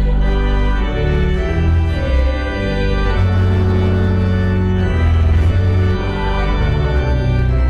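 Organ playing slow, held chords over deep bass notes that change every second or so.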